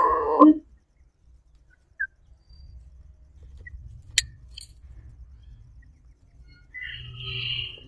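The end of a chicken's call, falling in pitch, in the first half second. Then mostly quiet with a faint low rumble, a sharp click about four seconds in, and a short high chirp near the end.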